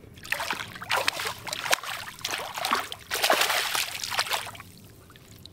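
A hooked bass thrashing and splashing at the water's surface as it is reeled in. The splashes come in several quick bursts over about four seconds and stop near the end.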